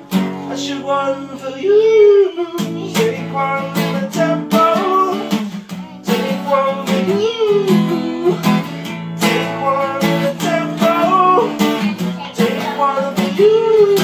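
Acoustic guitar strummed in steady chords, with wordless "oooo" vocals from a young child. Her sung phrase rises and falls and comes back about every five or six seconds.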